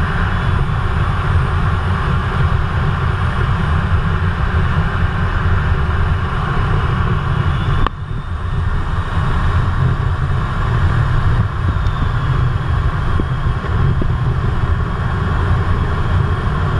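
Steady rumble and rushing airflow noise inside the cockpit of an RAF Eurofighter Typhoon in low-level flight, its twin EJ200 turbofan engines running. The noise dips for an instant about eight seconds in, then carries on.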